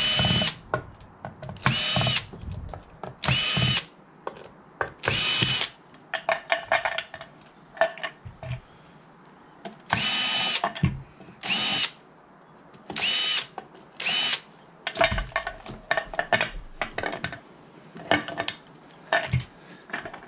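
Power drill running in about eight short bursts, each a steady high whine lasting under a second, taking out screws during a teardown. Small clicks and clinks of screws and metal parts fill the gaps between the bursts.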